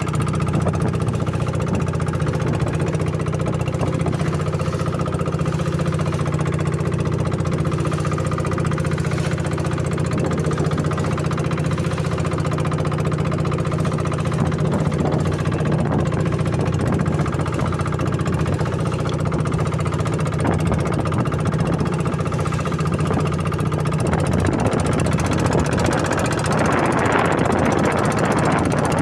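Boat engine running steadily with a low, even drone. A rushing noise swells over it near the end.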